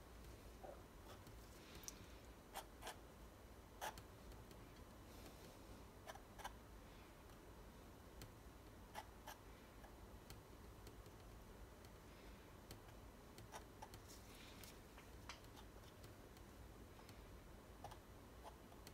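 Near silence, with faint scraping and scattered light ticks of a metal palette knife spreading thick acrylic paint on canvas.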